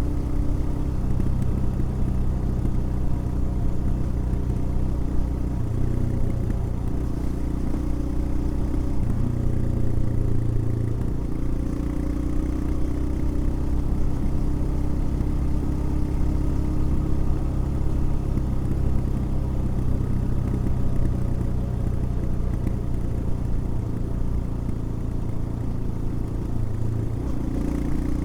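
Royal Enfield Himalayan's single-cylinder engine running while being ridden, holding a fairly steady pace with small rises and falls in engine speed.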